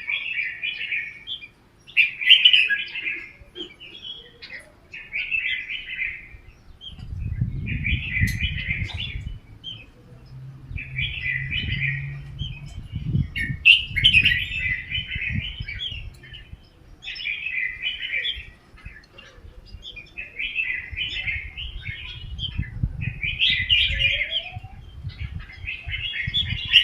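Red-whiskered bulbuls singing: short, bright song phrases repeated every two to three seconds. A low rumble sits underneath for a few seconds in the middle and again near the end.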